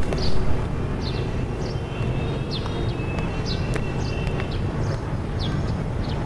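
Street ambience: a steady low rumble of passing traffic, with short high chirps about once a second over it.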